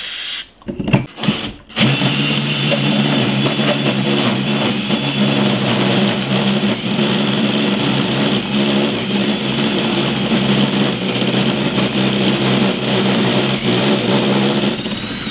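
Cordless drill turning a hole saw through 4 mm 6061 aluminium plate: a steady motor whine with the scraping of the saw teeth in the metal, running for about thirteen seconds and stopping suddenly at the end. Before it starts there are a few short sprays of cutting oil.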